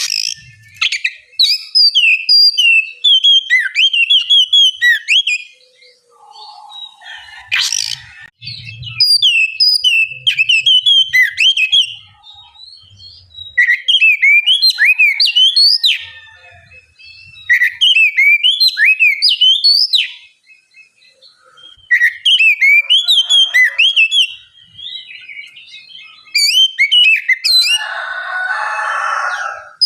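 Oriental magpie-robin (kacer) singing: bouts of a few seconds of rapid, sharply gliding whistled notes, broken by short pauses. A single click about eight seconds in, and a harsh rasping note near the end.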